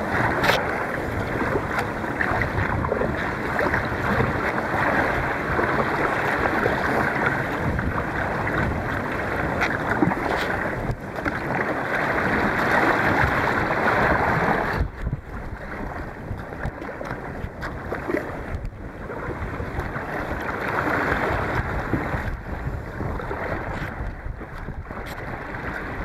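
Strong wind buffeting the microphone over the rush and splash of choppy water against a 12 ft Liquid Logic Saluda kayak being paddled into a headwind. About fifteen seconds in, the sound suddenly drops and turns muffled.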